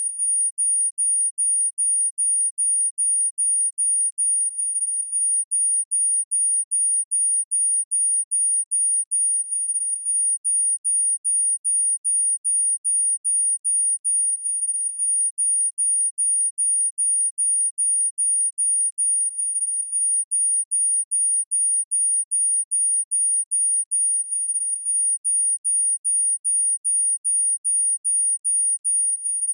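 A very high-pitched electronic beep, a single pure tone, pulsing on and off rapidly and evenly about three times a second.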